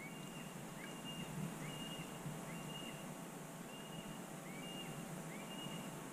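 A bird calling steadily: a series of faint, short, high whistled notes, about two a second, a brief rising-and-falling chirp alternating with a short level whistle.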